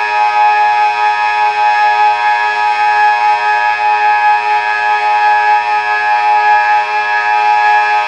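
Delta 6 electronic civil-defence siren sounding a loud, steady tone that holds one pitch without rising or falling: the continuous-tone signal of a civil-defence test alarm.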